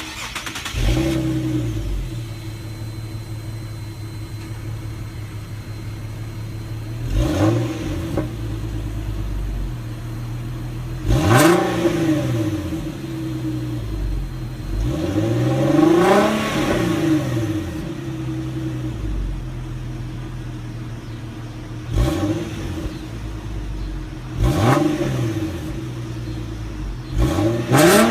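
2014 Infiniti Q50S's 3.7-litre VQ37VHR V6 on its stock exhaust, idling steadily with about six quick free revs that rise and fall back to idle; the rev around the middle is held longest.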